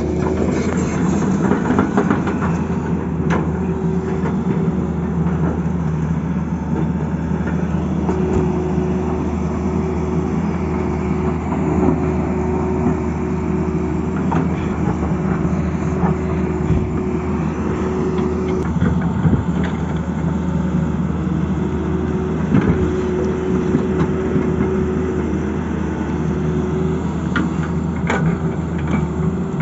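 Tata Hitachi excavator's diesel engine running steadily under work, with a few sharp knocks scattered through.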